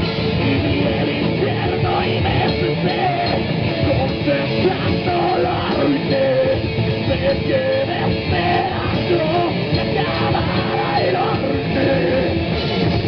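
Loud heavy rock music played by a guitar-driven band, an instrumental passage without vocals.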